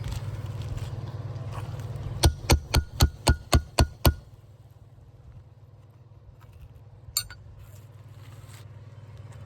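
Eight quick, sharp metallic hammer taps, about four a second, as a nail is worked out from under an asphalt shingle with a hammer and nail puller, then a single click a few seconds later.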